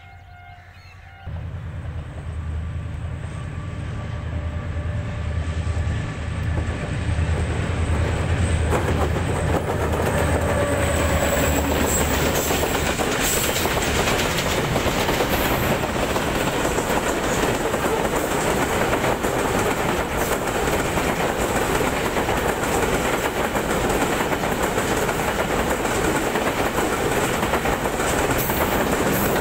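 HGMU-30 diesel locomotive coming up and passing close with a deep engine rumble, growing louder. Then a long rake of covered freight wagons runs past at speed, its wheels clattering over the rail joints in a steady clickety-clack.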